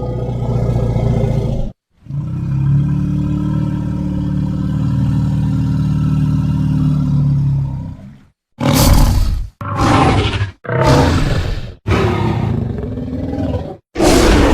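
Monster and dinosaur roar sound effects. A low growl cuts off near two seconds in, then a long, deep growling roar lasts about six seconds, followed by a run of five short, harsher roars of about a second each, separated by brief silences.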